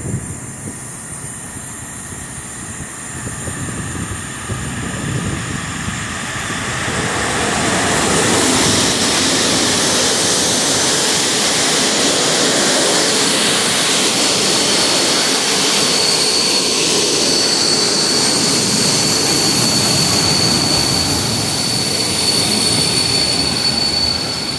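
EP07 electric locomotive and its passenger coaches rolling into a station close by: a steady rumble and hiss of steel wheels on rail that swells about a third of the way in as the train arrives. A steady high-pitched squeal joins about midway and carries on to the end.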